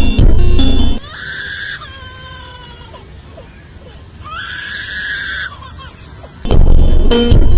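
Beat-driven music cuts out and an animal screams twice, two long, high, strained cries with a short gap between them, the first trailing downward. The music then resumes.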